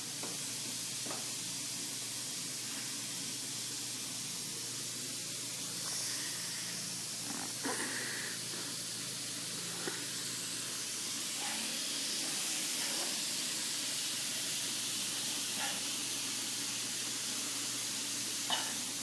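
Steady hiss of background noise with a few faint clicks and knocks scattered through it.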